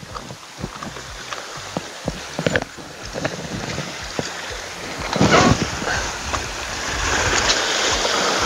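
Sea waves washing against a rocky shore, swelling about five seconds in and louder toward the end, after a stretch of light clicks and taps.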